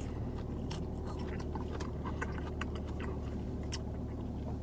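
Mouth-close chewing of salad, with small clicks and scrapes of a fork against a plastic salad container, over a steady low hum in a car cabin.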